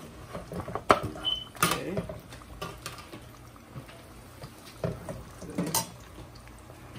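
Sliced eggplant being pushed with a metal spoon off a foil tray into hot oil in a nonstick pan: a few sharp clinks and scrapes of the spoon against the tray and pan, the loudest about a second in and again near five to six seconds, over a faint sizzle of the oil.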